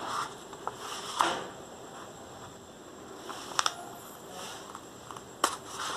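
A sheet of paper rustling and crinkling as a thin screwdriver tip is pushed through it to punch holes, with three short sharp clicks.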